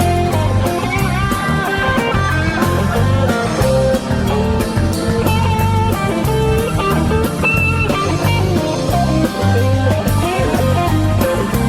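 Instrumental rock music: guitar playing over bass and drums with a steady beat.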